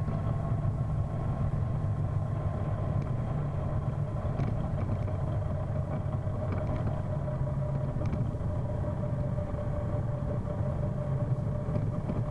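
Vectrix VX-1 electric maxi-scooter riding, its straight-cut reduction gear giving a steady whine that dips slightly in pitch mid-way, over a low rumble. A few light ticks come through.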